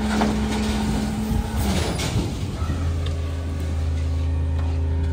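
Autocar WX front-loader garbage truck's diesel engine idling, then about two and a half seconds in stepping up to a steady, stronger drone at higher engine speed, as used to work the hydraulic fork arms. A couple of short knocks come early, from the steel dumpster being pushed into place.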